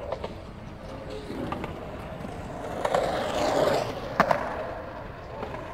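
Wheels rolling on pavement, swelling and fading as something passes close by, with a few sharp clacks; the sharpest comes just after four seconds in.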